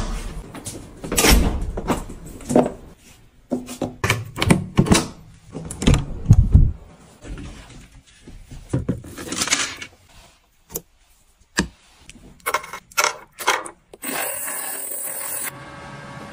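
A string of clicks, knocks and thumps from things being handled, beginning with the lever handle of an electronic smart door lock being pressed and the door opening. Near the end a steady noise runs for a couple of seconds.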